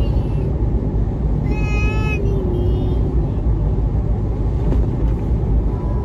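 Steady low rumble of a moving vehicle. A short high-pitched voice cuts in about a second and a half in.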